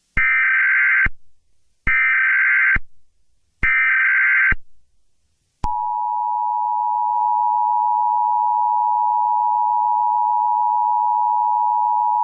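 Emergency Alert System signal: three short digital data bursts (the SAME header), each about a second long, followed about five and a half seconds in by the steady two-tone EAS attention tone, which holds.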